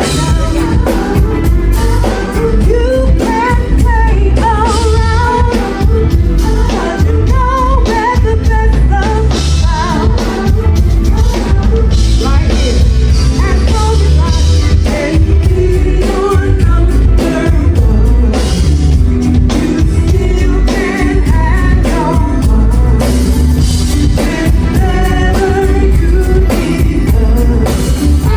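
An R&B band playing live with a lead vocal over bass and a drum kit.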